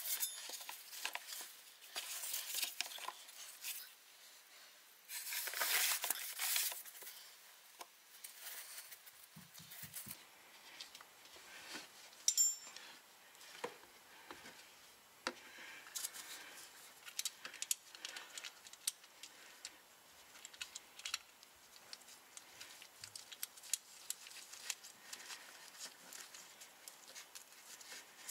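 Gloved hands working at a car's transfer case drain: faint rustling and scattered small clicks and taps. There are a few louder rustles in the first seven seconds and one sharp click about twelve seconds in.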